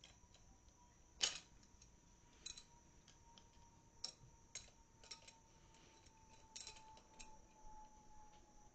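Sparse light metallic clicks and taps, about eight over several seconds with the loudest about a second in, from an open-end wrench and pliers working on a sprocket's retaining nut; otherwise near silence.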